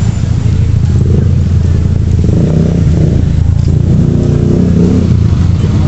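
Motor vehicle engine running close by: a steady low hum that stays loud throughout.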